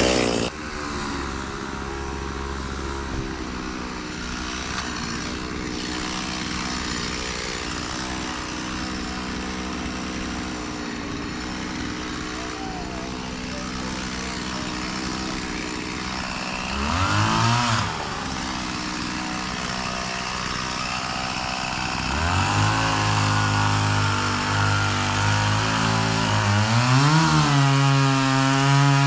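Two-stroke chainsaw idling steadily, briefly revved up and back down about two-thirds of the way through, then brought up to a louder high-speed run near the end.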